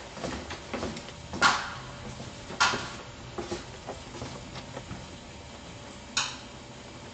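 A few sharp knocks over light clattering: the loudest about a second and a half in, another a second later, and a third near the end.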